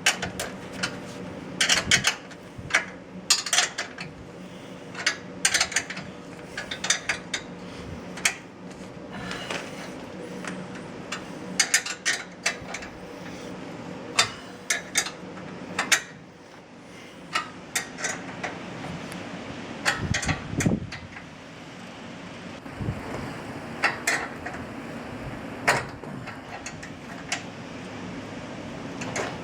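Irregular metallic clicks and clanks of garage door hardware and hand tools being handled during installation, over a steady low hum.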